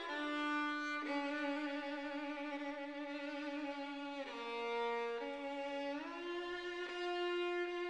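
Background music: a slow melody of long held notes that slide from one pitch to the next.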